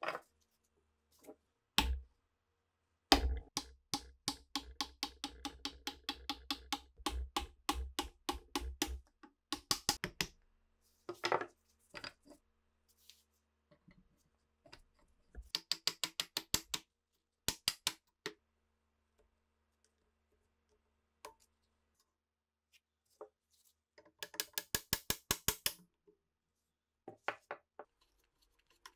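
Short runs of quick, evenly spaced metal clicks and taps with quiet gaps between, from hand tools working on the rusty action of a bolt-action rifle held in a bench vise.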